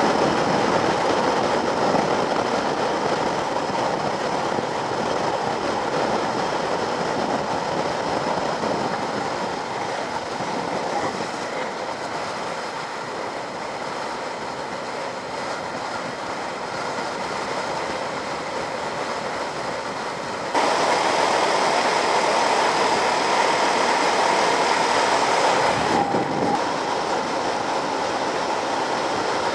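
Wind rushing over a motorcycle-mounted camera, with the motorcycle's engine and tyre noise underneath as it rides along a wet road. The sound changes suddenly twice, about two-thirds of the way in and again a few seconds later, where the footage cuts.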